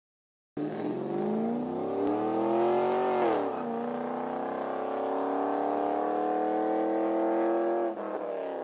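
Car engine accelerating: its pitch climbs, drops sharply at a gear change about three seconds in, then climbs again more slowly through the next gear before easing off near the end.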